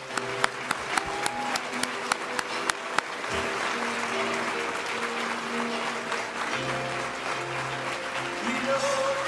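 Audience applauding over instrumental background music. For the first three seconds sharp single claps stand out close by, about three a second; after that the applause goes on as an even patter under the music.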